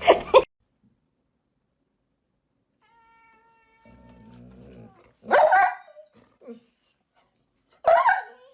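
A pet animal crying out twice: two loud, pitched calls of under a second each, about two and a half seconds apart.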